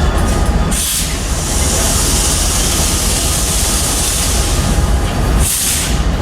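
Slow-moving Norfolk Southern freight train with a steady low rumble. A loud, high hiss starts suddenly about a second in and stops shortly before the end.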